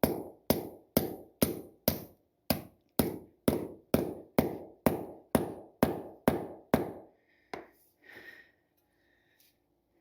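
Hammer blows driving a wedge bolt in, metal on metal with a short ring after each strike. About fourteen steady blows come two a second and stop about seven seconds in, followed by a faint tap and a rustle.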